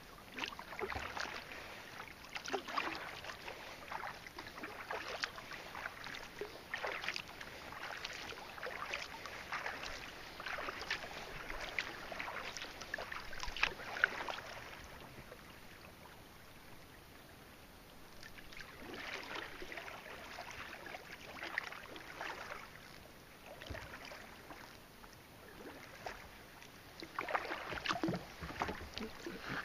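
Kayak paddle blades dipping and pulling through calm lake water, with splashes and drips off the blades. The strokes come in runs, easing off for a few seconds around the middle and again a little later.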